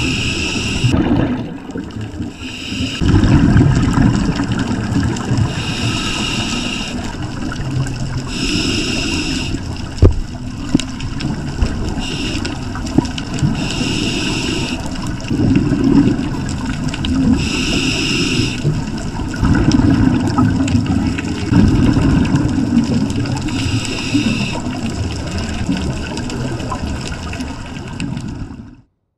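Scuba diver breathing through a regulator underwater: a hiss on each inhale every few seconds, alternating with the low gurgling rumble of exhaled bubbles. The sound cuts off just before the end.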